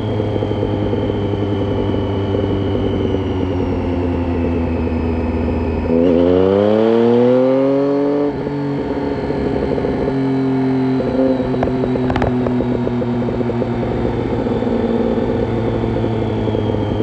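2007 Triumph Street Triple 675's inline-three engine through a Roads Italia exhaust with dB killer, running at steady revs. About six seconds in, it revs up hard and louder for about two seconds, rising in pitch, then the throttle closes. It goes back to steady running with a few small throttle blips.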